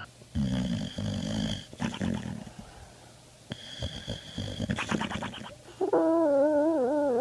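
Dog lying on a couch making low growling, snore-like noises with a high whine over them, in two spells. About six seconds in, a louder wavering, howl-like voice starts and holds.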